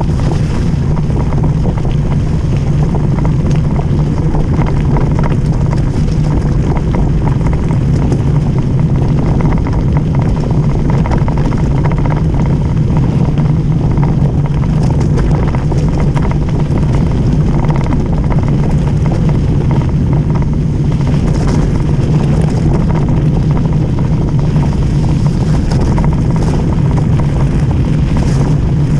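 Cannondale mountain bike rolling fast downhill on a wet gravel road: a loud, steady rumble of tyres and wind on the bike-mounted camera, with constant small clicks and rattles from the gravel and the shaking bike.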